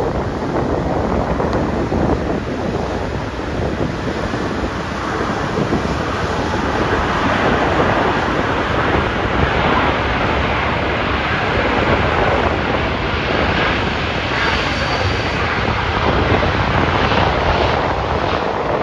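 Wind buffeting the microphone over the steady rush of a taxiing British Airways Boeing 787-8's Rolls-Royce Trent 1000 jet engines.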